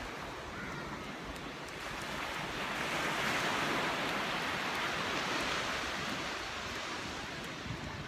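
Ocean surf: small waves breaking and washing up a sandy beach, a steady rushing hiss that swells a little partway through.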